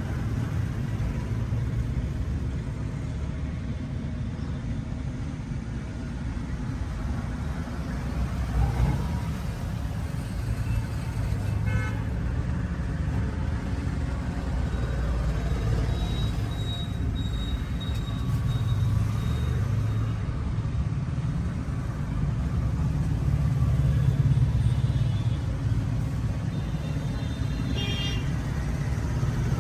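Steady rumble of road traffic passing close by.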